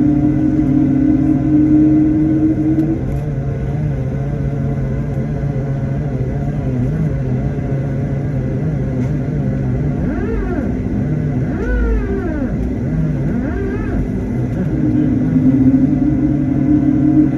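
Airliner cabin noise: a steady engine drone and rumble with a low hum. A higher hum is stronger at the start and again near the end, and a few wavering tones rise and fall about two-thirds of the way through.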